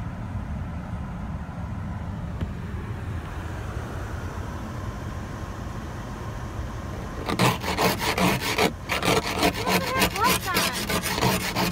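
Steady low rumble heard from inside a car cabin. About seven seconds in, an ice scraper starts scraping frost off the windshield in quick repeated strokes, heard through the glass.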